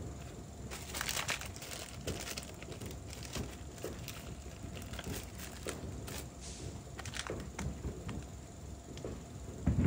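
Scattered light clicks and crinkly rustling from hands handling small parts, loudest about a second in.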